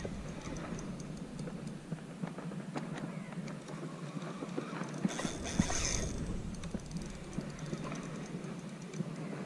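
Daiwa spinning reel being cranked on a lure retrieve: rapid rhythmic clicking and ticking from the turning rotor and handle, over handling rumble, with a brief hiss about halfway through.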